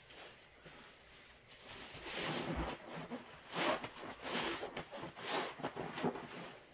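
Wet sponge squeezed and worked by a gloved hand in thick cleaner suds in a plastic tub: a run of several wet squishes, starting about two seconds in and dying away near the end.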